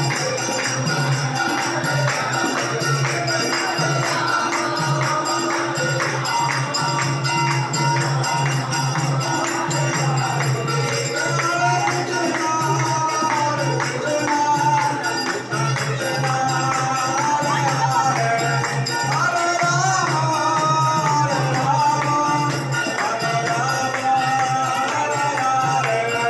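Devotional kirtan music: voices chanting a melody over jingling percussion and a drum beating a steady pulse.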